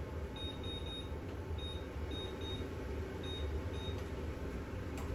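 Oven control panel beeping with each key press as the temperature is set to 375°F for preheating: a string of short, high beeps at uneven intervals over the first four seconds, above a low steady hum.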